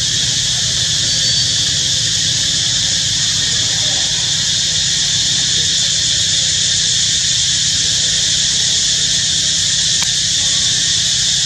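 Steady, high-pitched drone of an insect chorus, unbroken and even in level throughout.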